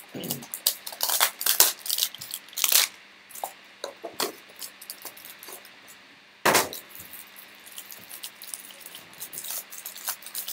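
A cardboard trading-card hanger box being torn open and its plastic-wrapped card stack handled, with crinkling plastic and short crackles and clicks throughout. One louder rip comes about six and a half seconds in.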